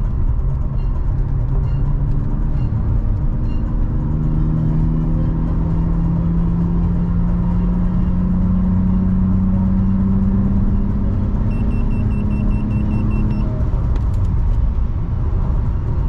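BMW E46 325i's straight-six engine and road rumble heard from inside the cabin, the engine note climbing slowly as the car pulls in gear, then easing off about three-quarters of the way through.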